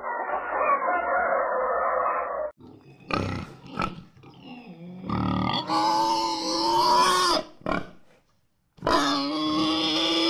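Chickens clucking for the first couple of seconds, then a pig giving short grunts and two long, high squeals.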